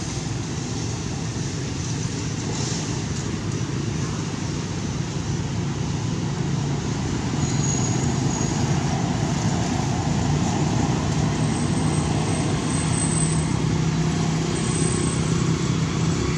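Steady low rumble of motor traffic, growing slightly louder about halfway through, with a few faint thin high tones above it.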